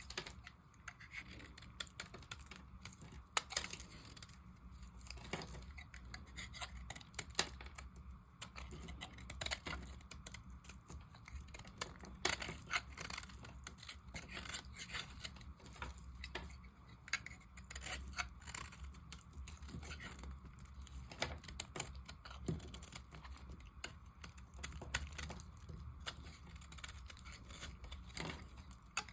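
A knife cutting into dry soap, making an irregular run of small crisp crackles and scraping clicks over a faint low hum.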